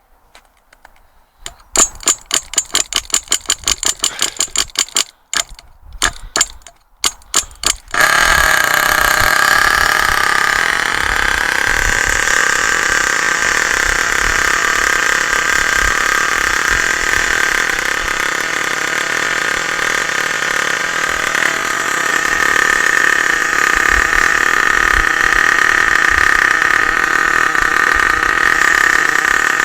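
Small pull-start RC car engine being started: a quick run of sharp pops as it fires, then about eight seconds in it catches and runs steadily with a high-pitched buzz.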